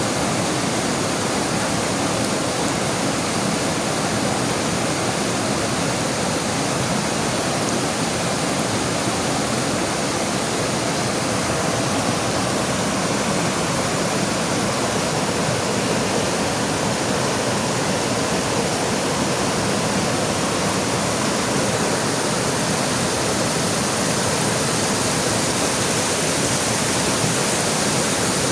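Heavy rain pouring down beside a flowing river: a steady, even rush of water that does not let up.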